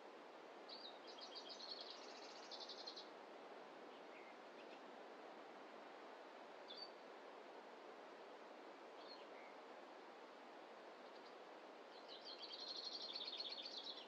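A small songbird sings two rapid trills of high notes, one lasting about two seconds near the start and another near the end, with a few single chirps between. Under it runs a steady, soft background hiss.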